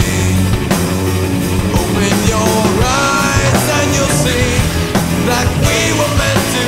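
Rock song with a singing voice over a band and steady drum beat.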